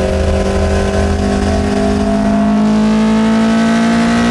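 Swapped Toyota Dual BEAMS four-cylinder with individual throttle bodies, naturally aspirated, pulling under load in a bakkie, heard from inside the cab. Its note rises slowly and evenly as the revs climb through a gear.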